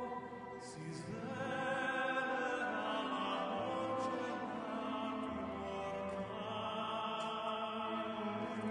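Operatic singing with orchestral accompaniment: a voice holds long notes with vibrato over sustained strings.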